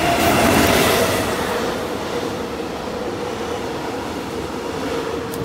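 Electric train passing below, a rushing rumble with a steady hum, loudest about half a second in.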